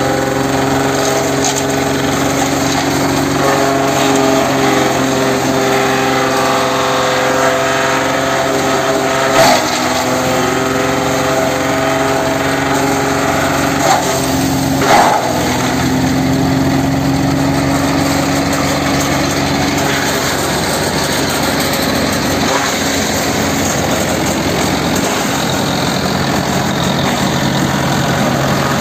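Mahindra Yuvo 575 tractor's diesel engine running steadily under load while driving a PTO shredder that chews up coconut fronds, with three sharp knocks in the middle as stems are struck in the machine.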